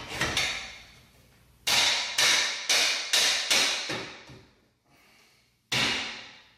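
Aluminium front bumper beam knocked repeatedly as it is worked into place on the car's front crash cans: sharp metallic knocks that ring briefly. One comes just after the start, then a run of six at about two a second, then one more near the end.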